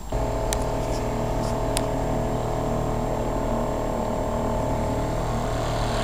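A small boat motor running steadily at an even pitch.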